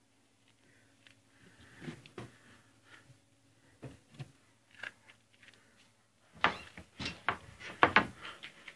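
Handling noise: scattered rustles and knocks of fabric rubbing against the camera's microphone, growing into a louder burst of rustling and clicking about six seconds in.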